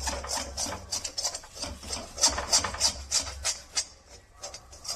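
Spatula scraping around a kadhai, stirring ginger as it is lightly roasted: quick rasping strokes about three a second, fewer near the end.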